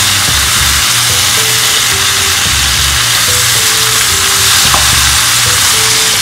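Breaded fish, mango and vegetables sizzling in a hot nonstick pan as a spatula stirs and tosses them in the sauce, a steady frying hiss. Soft background music with a simple repeating melody plays along.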